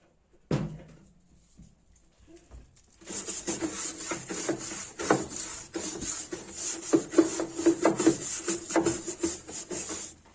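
Hand scrubbing inside a top-loading washing machine, at the pulsator and its seat: a single knock, then from about three seconds in a long run of quick, rasping scrub strokes that stops just before the end.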